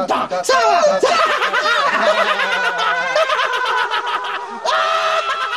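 High-pitched voices cackling and chuckling in quick, overlapping bursts, laughter-like, with one long held high note near the end.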